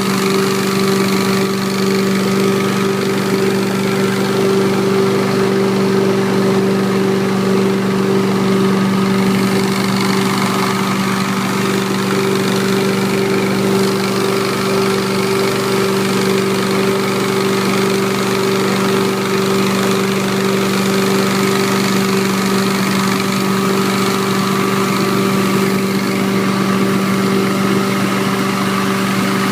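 Carpet-cleaning extraction equipment for a MyTee T-Rex rotary extractor running with a steady hum, one pitch held throughout.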